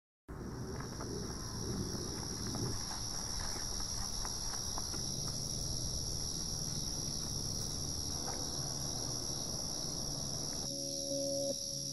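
Steady chorus of insects, a continuous high-pitched shrill that cuts in abruptly right at the start. Near the end, low held music notes come in underneath.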